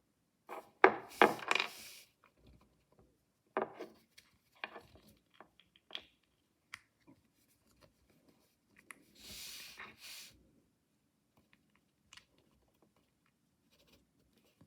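Hands handling mystery-toy packaging: irregular crinkling and crackling of wrapping, loudest about a second in, with a smooth hiss lasting about a second around nine seconds in.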